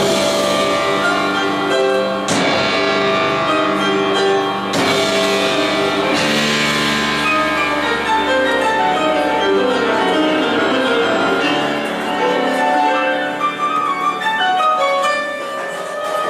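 Instrumental music, sustained chords shifting slowly, with two sharp crashes about two and five seconds in.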